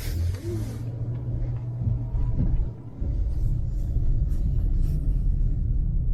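Car driving, a steady low road-and-engine rumble heard from inside the cabin, dipping briefly a little before halfway.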